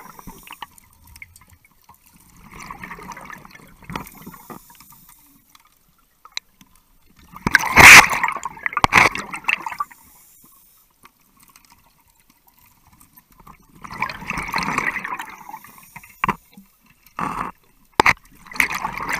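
Scuba diver breathing underwater through a regulator: bursts of exhaled bubbles every few seconds, the loudest about eight seconds in, with quiet between breaths. A few sharp knocks come near the end.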